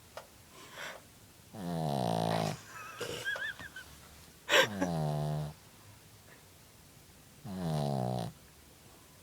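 Sleeping dog snoring: three long, pitched snores about three seconds apart, each lasting about a second, the middle one starting with a sharp snort.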